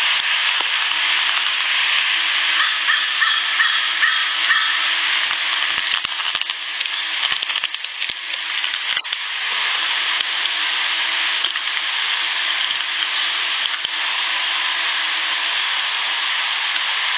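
Amplified night field recording from an outdoor audio recorder: a steady buzzing hiss with a faint steady hum that drops in and out, and a few soft clicks partway through. The recordist takes the buzz for an unknown insect that sounds like a house fly flying at night.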